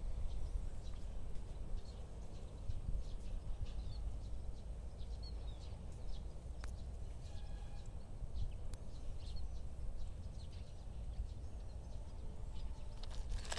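Low outdoor rumble, such as wind on the microphone, with scattered small handling clicks and a few faint bird chirps.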